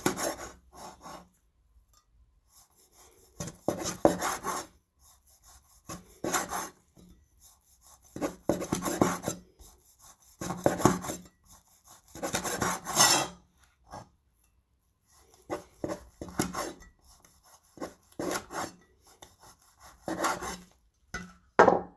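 Kitchen knife slicing through tough beef tendon on a chopping board: a series of rasping, sawing cuts, each lasting about half a second to a second and a half, with pauses of a second or two between them and a few short knocks of the blade on the board.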